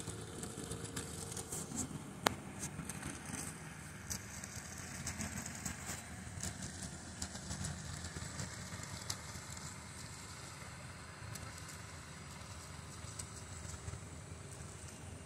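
Outdoor background noise: a steady low rumble of distant traffic, with scattered light crackles and one sharp click about two seconds in.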